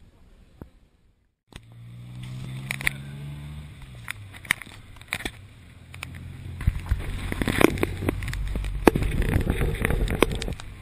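A small motor vehicle's engine running under a vehicle-mounted camera, its pitch slowly falling as it eases off. Then low road rumble and wind on the microphone build as it picks up speed, with scattered knocks and rattles.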